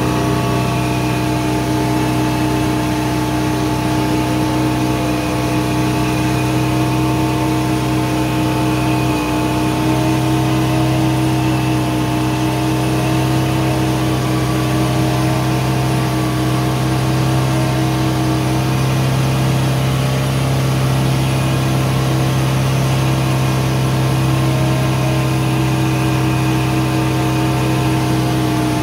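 Old log skidder's engine running at a steady, constant pitch, heard from inside the operator's cab.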